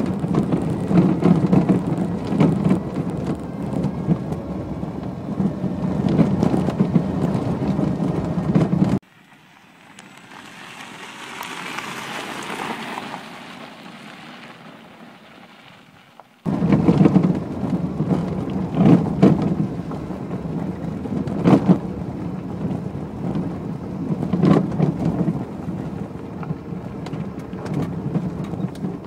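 Road noise inside an electric-converted Renault 9 driving over a rough gravel road: a steady low rumble of tyres and suspension with knocks and rattles from the body, and no engine sound. About nine seconds in it cuts to a quieter crunching hiss of tyres on gravel that swells and fades. After about seven seconds the cabin rumble returns, with several sharp knocks.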